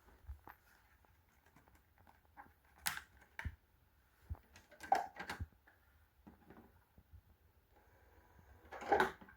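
Plastic Blu-ray case being opened and the disc handled: a handful of scattered light clicks and knocks, the loudest near the end.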